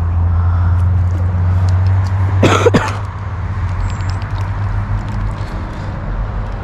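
A person coughs once, a short harsh burst about two and a half seconds in, over a steady low hum.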